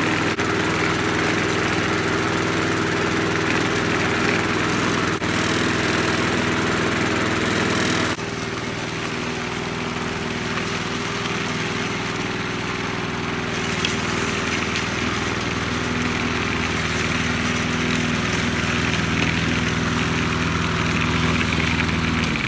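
Gasoline walk-behind push mower engine running steadily. About eight seconds in the sound drops a little in level and its tone shifts slightly.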